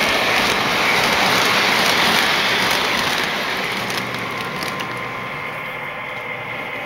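O-gauge model train passenger cars rolling along the track: a steady clattering rumble of wheels with faint clicks, easing off a little about four seconds in as the cars move past.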